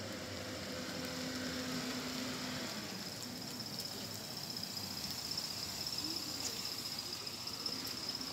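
Steady high-pitched insect buzz, with a Mitsubishi Pajero SUV's engine humming low as it drives slowly up and passes close by.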